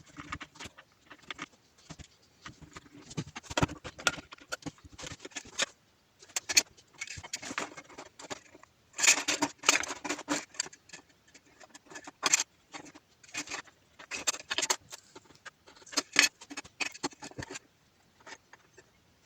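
Irregular metallic clinks, clicks and rattles of metal parts and hand tools being handled, in uneven clusters with a few sharper knocks.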